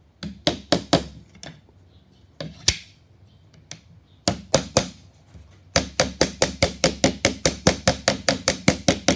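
A plastic-faced fret hammer tapping a fret wire down into its slot in a fretboard. Scattered single taps at first, then a quick, even run of about five taps a second over the last few seconds as the fret is seated along its length.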